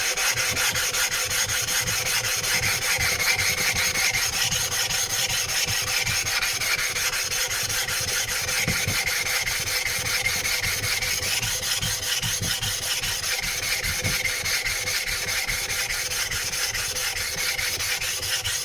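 A coarse 200-grit flattening stone rubbed back and forth over a wet 320-grit whetstone, a steady gritty scraping as the uneven stone face is ground flat.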